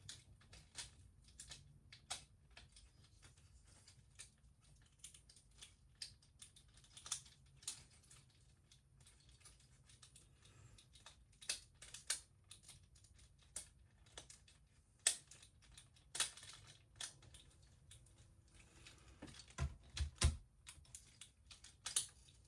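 Hard plastic action-figure parts clicking and tapping as a jetpack is pushed and fitted onto a Transformers figure: irregular small clicks, with a few louder snaps about two-thirds of the way through.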